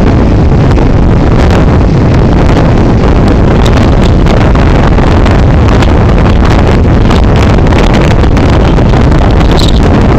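Strong storm wind blasting the phone's microphone in a loud, unbroken rumble with constant buffeting, over heavy surf breaking on the beach.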